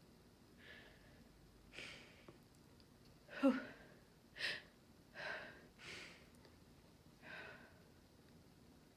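A woman's stuffed-up, heavy breathing between sneezing fits brought on by chhinkni sneezing powder: about seven short, breathy gasps and sighs roughly a second apart, one of them a soft voiced "oh", with no sneeze.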